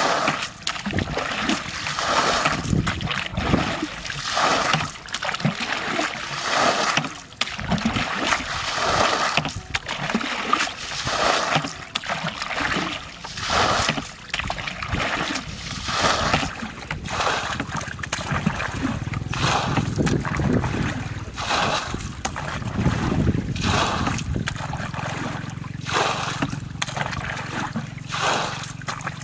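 Water bailed with a plastic bucket from a shallow muddy canal, a splash about once a second as each bucketful is scooped and thrown out.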